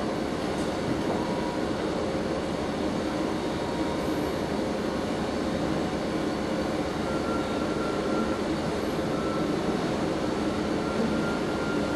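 Reading & Northern excursion passenger train rolling steadily along the track, heard from aboard a car as an even rumble of wheels on rails. A faint thin high tone comes and goes in the second half.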